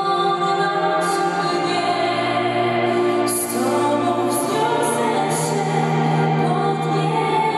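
A woman singing a slow song with a string quartet accompanying her, violins and cello holding long sustained notes beneath the voice.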